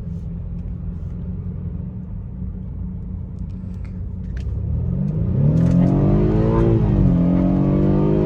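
BMW N20 2.0-litre turbocharged four-cylinder, heard from inside the cabin: a steady low rumble while cruising, then hard acceleration about five seconds in, the engine note rising, dropping at an upshift and rising again. It pulls without the misfire fault returning, after the spark plugs and coils were swapped between cylinders.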